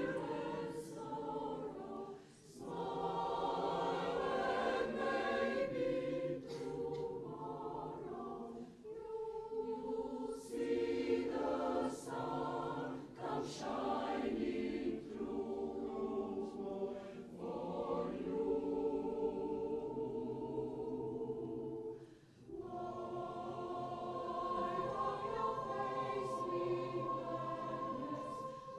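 Mixed choir of men's and women's voices singing a piece, with short breaks between phrases about two and a half seconds in and again about twenty-two seconds in.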